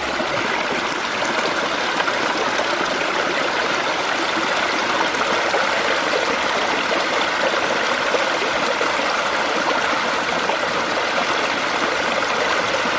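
Steady, even rush of a fast-flowing mountain stream.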